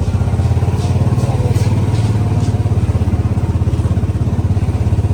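Small vehicle engine idling steadily, with a fast, even low pulse.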